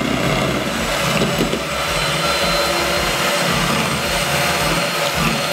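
Electric hand mixer running steadily, its beaters whipping cold cream in a bowl toward the stiff chantilly stage.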